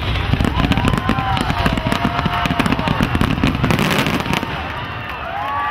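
A fireworks finale: a dense, rapid barrage of crackling and popping that thins out about four seconds in. A crowd begins cheering near the end.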